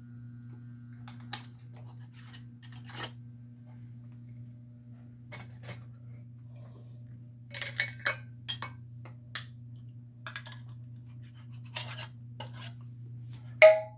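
Glass pickle jars and their metal lids being handled and closed: scattered clinks, taps and short scrapes, ending in one sharp ringing clink near the end. A steady low hum runs underneath.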